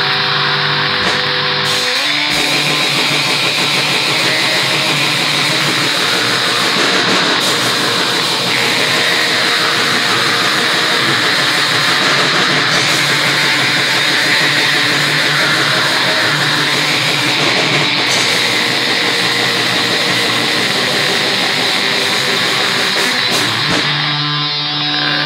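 Raw black metal: a wall of heavily distorted electric guitar with a thin, bass-light demo sound. It fills out and gets denser about two seconds in, then thins again near the end.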